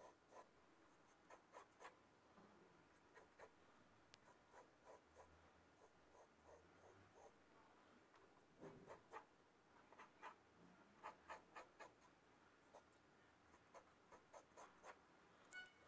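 Faint scratching of a pencil drawing short, firm strokes on paper in irregular runs, going over straight lines to darken them.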